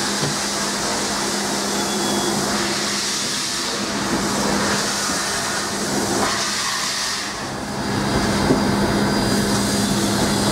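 Steady hiss and rush of steam in the cab of KA 942, an oil-fired New Zealand Railways Ka class steam locomotive, shunting, with a steady hum underneath. About eight seconds in it grows a little louder and deeper.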